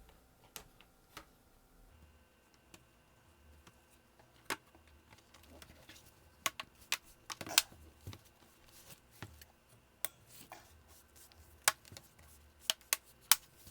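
Dell Inspiron 13 7000 laptop's bottom cover being fitted back on: scattered sharp plastic clicks and taps, with a few louder snaps in the second half.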